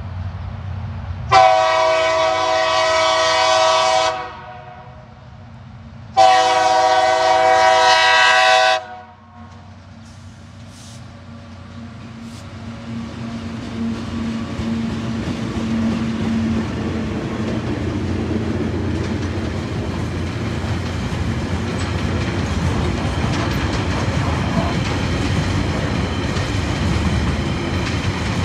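Two TasRail TR-class diesel locomotives sound two long horn blasts, each about three seconds, then pass with their engines running. A long train of container wagons follows, rolling by on the rails, the rumble growing louder and then holding steady.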